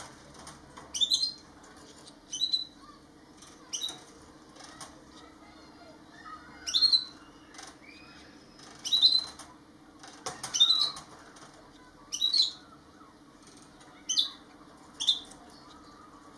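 Gouldian finches giving short, high-pitched calls, one every second or two, about ten in all, over a faint steady low hum.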